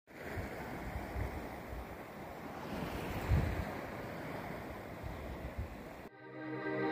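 Sea surf with wind buffeting the microphone: a steady hiss with low gusts. About six seconds in it cuts off abruptly and music begins to fade in.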